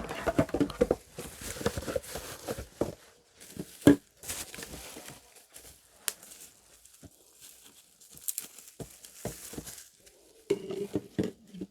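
Packaging being unwrapped and pulled off: wrapping crinkling and tearing, with irregular handling clicks and knocks, the sharpest knock about four seconds in.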